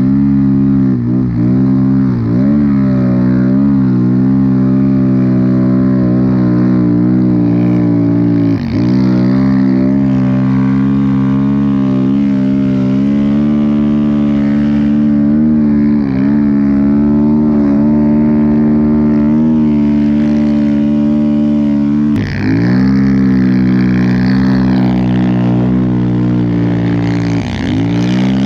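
Snowbike's dirt-bike engine running hard at high, steady revs while the track churns through deep powder. The pitch dips briefly and climbs back several times as the throttle is rolled off and reopened.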